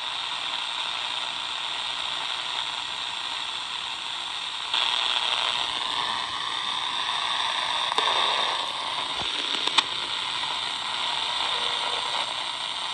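Shortwave static hissing from a Tecsun R9012 pocket radio's speaker while it is tuned between stations on the 49-metre band. The hiss steps up about five seconds in, and there are two sharp clicks around eight and ten seconds in.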